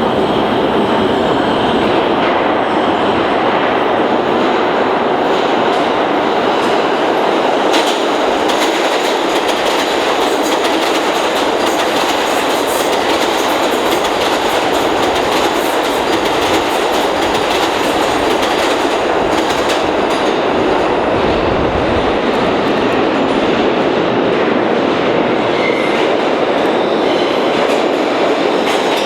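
New York City Subway train running through a station: loud, steady wheel and track noise with a stream of clicks as the wheels cross rail joints.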